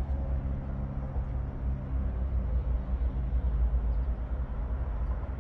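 Chainsaw's two-stroke engine running steadily at a low, even pitch.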